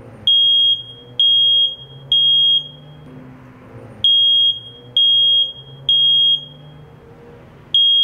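Smoke alarm sounding: loud high-pitched beeps of about half a second each, in groups of three separated by a pause of about a second and a half. This is the standard temporal-three evacuation pattern.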